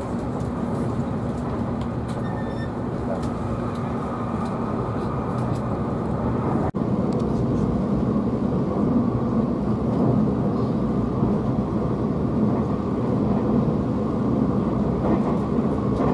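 Running noise inside the passenger cabin of a Tobu 500 series Revaty limited express train in motion: a steady rumble of wheels, motors and air. There is a momentary break about seven seconds in, and the running noise is a little louder after it.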